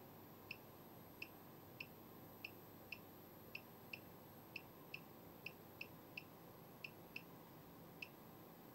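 Soft clicks of the signal generator's amplitude control knob being turned step by step, about two a second at uneven spacing, over a faint steady hiss.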